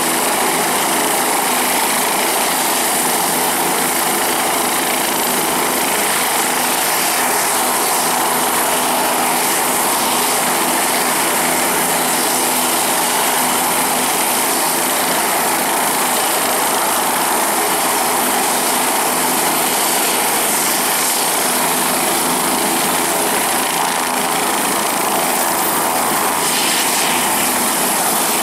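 Bell 407GX helicopter running steadily with its main and tail rotors turning, just before lift-off: a constant high turbine whine over the rush of the spinning rotors. Its source is a single Rolls-Royce 250 turboshaft engine.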